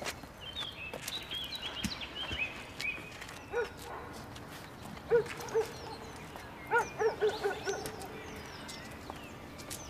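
A dog barking: a single bark, then two more, then a quick run of barks. Birds chirp in between.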